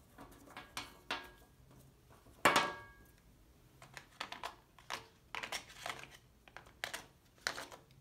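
Oil pastel sticks clicking and clattering together as they are gathered up and put away in their plastic case, with a sharper ringing clink about two and a half seconds in.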